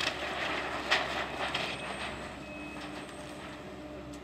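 Link-Belt demolition excavator tearing apart a building: continuous crunching and clattering of breaking wood, metal and masonry, with a sharp crack about a second in and a faint steady mechanical hum in the second half.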